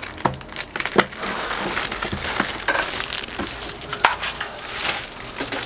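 Clear plastic bag crinkling and rustling, with small clicks and knocks, as a microinverter wrapped in it is lifted out of a foam-lined cardboard box.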